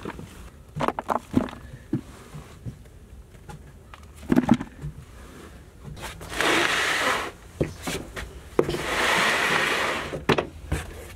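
Scattered knocks and scuffs, then two longer scraping sounds about six and nine seconds in: a person crawling on hands and knees across a plywood sheet, knees and shoes dragging on the board.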